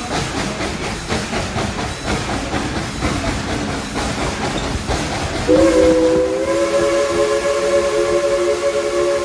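Steam locomotive's whistle sounding one long blast, a chord of several notes that starts abruptly about five and a half seconds in and is held, over the rattle of the train's wheels on the rails heard from an open passenger car.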